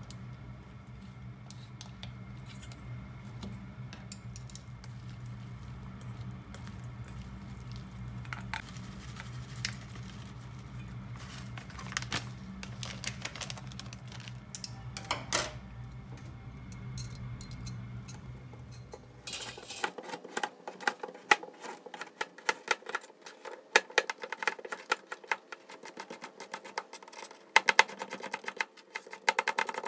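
Wooden chopsticks tossing spinach in a stainless steel bowl, with a few light clicks against the metal over a steady low hum. About twenty seconds in, a kitchen knife takes over, cutting carrot into thin strips on a plastic cutting board in quick, steady chopping strokes.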